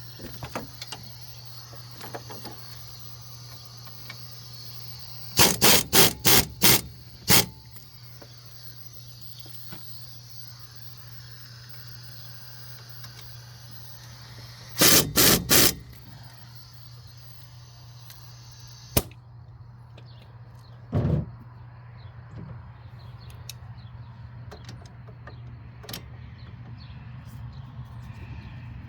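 Impact wrench run in short bursts, about five quick bursts in a row, then three more, then a single one, driving in wheel hub bolts. The wrench is barely making power. A steady low hum runs underneath, and there is a sharp click between the later bursts.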